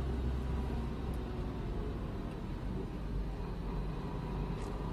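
2004 Honda Civic's manual transmission grinding under load while driving, heard from inside the cabin over a steady low drone of engine and road. The grind comes from a worn input shaft bearing.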